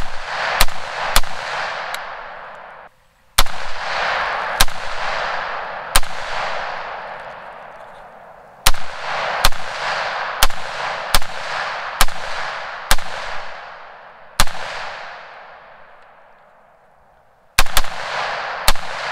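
Semi-automatic .308 PSA AR-10 rifle firing a string of about eighteen shots at an uneven pace through a 7-inch baffled aluminum muzzle brake, really, really loud, each crack followed by a long echo dying away over a few seconds, with a pause of about three seconds near the end before a quick double and a last shot.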